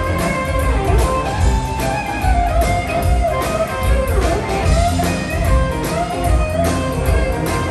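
Live band playing an up-tempo boogie-woogie number over a steady drum beat, with a lead guitar line that bends up and down in pitch.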